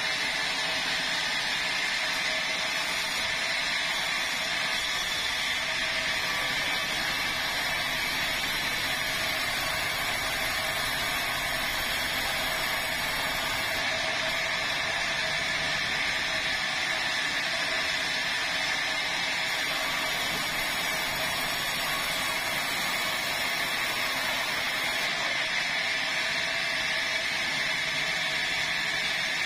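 Sawmill saw running steadily as it cuts boards from a red meranti log, a continuous machine noise with no breaks.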